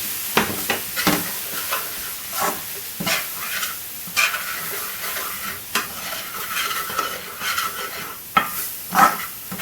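Ground spices and garlic-ginger paste sizzling in a curry pan, with a utensil stirring and scraping across the bottom of the pan in many short, sharp strokes.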